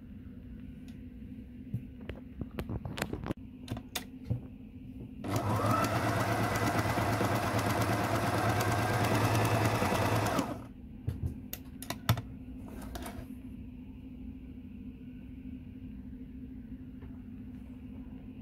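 Frister Rossmann Cub 3 electric sewing machine running for about five seconds in the middle, its motor winding up as it starts and then stopping abruptly. Scattered clicks come before and after.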